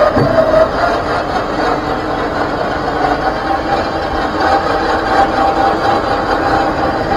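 Warn electric winch on the front of a Ram Power Wagon spooling in its cable under load, pulling the truck forward to pre-tension the line on the drum. It is a steady motor whine that grows stronger about three seconds in.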